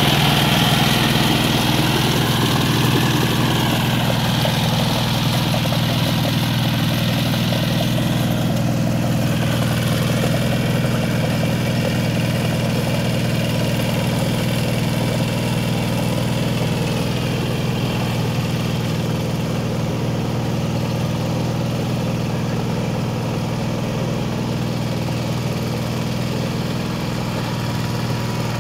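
Kubota K700 walk-behind power tiller's single-cylinder diesel engine running steadily under load as it rotavates a flooded paddy field, slowly growing fainter as the machine moves away.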